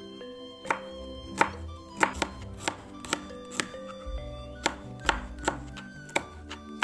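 Kitchen knife slicing shallots, garlic and green chillies on a plastic cutting board: sharp knocks of the blade on the board about every half second, over background music.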